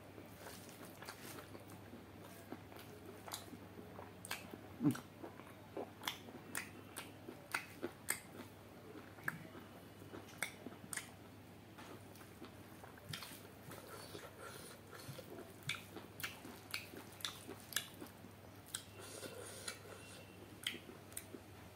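Close-up mouth sounds of eating chicken curry and rice by hand: chewing with wet smacks and clicks, irregular and coming in runs, the loudest smack about five seconds in.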